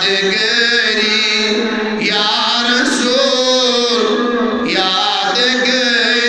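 A man's solo voice chanting a Kashmiri naat, a devotional poem in praise of the Prophet. He holds long notes and adds a wavering ornament about halfway through.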